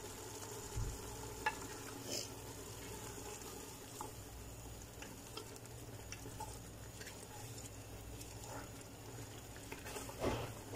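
A wooden spatula stirring meat pieces in a tomato-and-spice sauce in an aluminium pot while the mixture sizzles steadily over the heat, with scattered light knocks and scrapes of the spatula against the pot.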